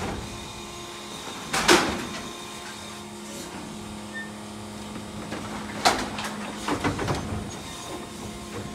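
Electric Mack LR New Way Sidewinder side-loader garbage truck working at the curb: a steady electric motor and hydraulic hum, with a loud metallic clank about two seconds in and more clanks around six to seven seconds in.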